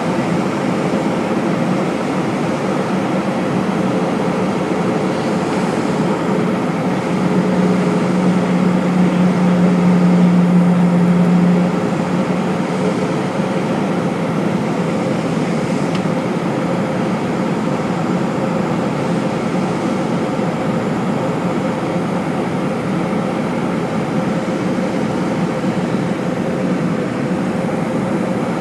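Steady aircraft cabin noise in flight: the drone of the engines and rushing air. A deep hum swells louder from about 7 to 12 seconds in, then settles back.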